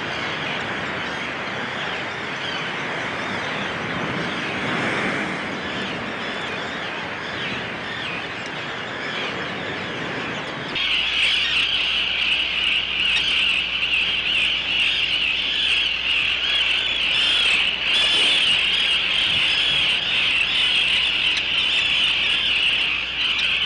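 Surf washing over rocks. About halfway through, it gives way to a steady, dense chorus of high calls from many terns in a nesting colony.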